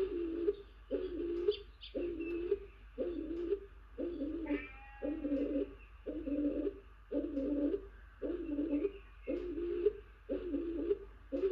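A male stock dove perched on the nest box, cooing persistently: a steady series of low two-note coos, a little over one a second.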